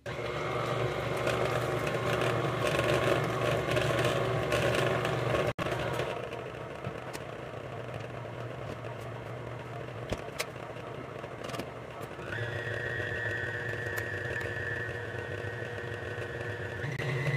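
Electric mixer running steadily, beating cake batter; about twelve seconds in a higher steady whine joins the motor sound.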